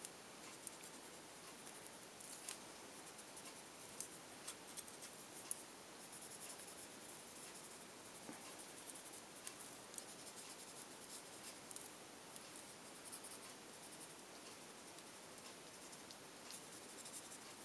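Paper blending stump rubbing over colored pencil on paper, blending and softening the color in faint, irregular scratchy strokes.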